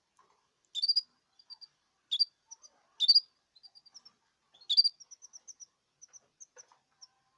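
Young canaries chirping: four louder, sharp chirps about a second apart, then a run of quick, soft, high chirps.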